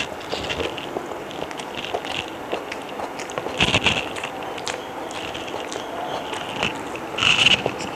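Close-up eating sounds of a person eating chicken biryani: chewing with small wet clicks and crackles throughout, and two louder bursts about three and a half and seven seconds in.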